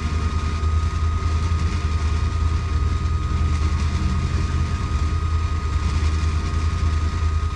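Side-by-side UTV engine idling steadily, with a thin, constant high tone over the low engine rumble.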